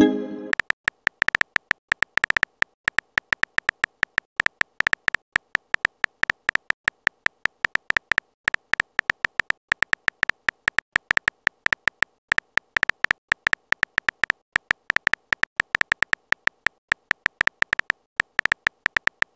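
A texting-story app's simulated keyboard clicks: short, high electronic ticks, several a second at an uneven pace, as a message is typed out letter by letter. A message pop fades out in the first half-second.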